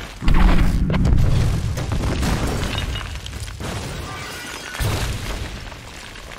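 Building explosion: a sudden deep boom just after the start, then a long rumble with crackling debris that slowly fades, and a second boom about five seconds in.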